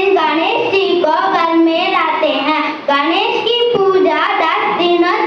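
Children singing, with held, wavering notes.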